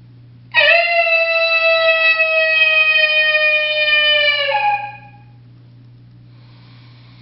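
A mouth-blown coyote howler call sounding one long howl, imitating a coyote. It rises quickly at the start, holds a steady pitch for about four seconds, then drops off and stops.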